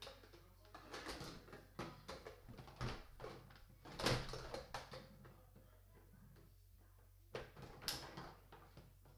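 Handling noise from toy parts and packaging being picked up and moved: a busy run of knocks, clicks and rustles, loudest about four seconds in, then a few sharp clicks near the end.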